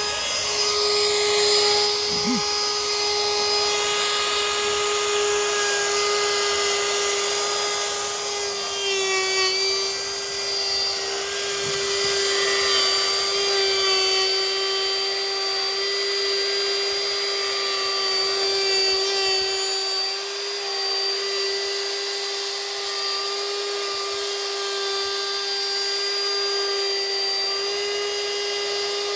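Ryobi trim router running at full speed, its steady high whine routing a hinge mortise into the edge of a wooden window sash. The pitch sags slightly a few times, around nine seconds in and again near twenty seconds.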